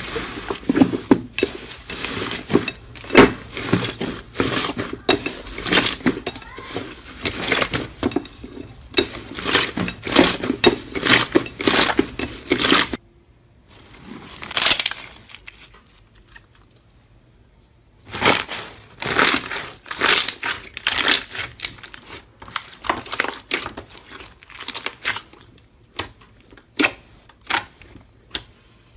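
Slime being squeezed and pressed by hand, giving rapid runs of sharp clicking and popping; about halfway through it stops for a few seconds, apart from one short sound, then starts again.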